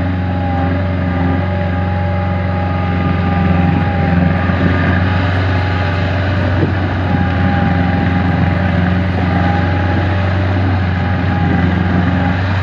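Kubota diesel engine of a Jacobsen LF3810 mower running steadily under load, driving the hydraulic drive of a homemade amphibious buggy as it pushes out into the water to float. A constant hum with a faint steady whine above it.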